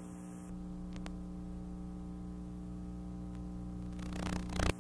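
Low, steady electrical hum with its overtones and a faint hiss, broken by a single small click about a second in.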